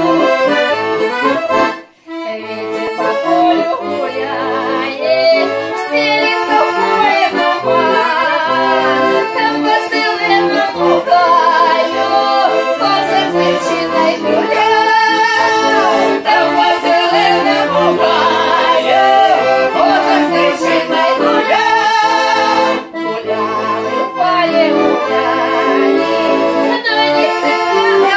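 Accordion playing a Russian folk-style melody, with a brief break in the music about two seconds in.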